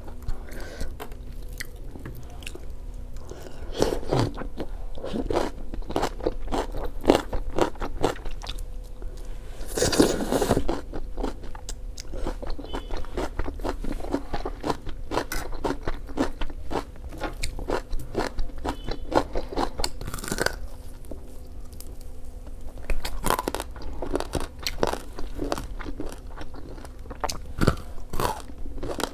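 Close-miked eating sounds of a person biting and chewing food: a steady run of crunches and mouth clicks, with several louder crunching bites spread through, the loudest about ten seconds in.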